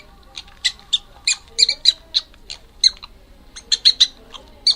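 Prairie dog giving a rapid series of short, high-pitched chirping barks in irregular clusters, with a short pause about three seconds in.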